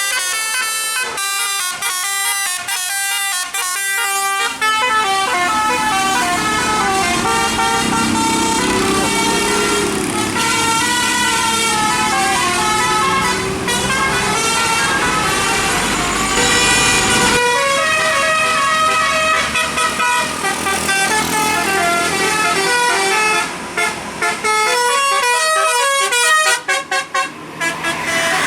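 Bus 'telolet' musical air horn playing a tune of many short notes stepping up and down in pitch. A deep rumble of the bus running under it through the middle stretch stops suddenly at around seventeen seconds.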